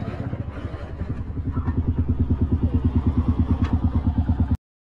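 Dirt bike engine idling with an even, pulsing beat of about ten a second as the bike comes to a stop, growing louder about a second in. The sound cuts off suddenly near the end.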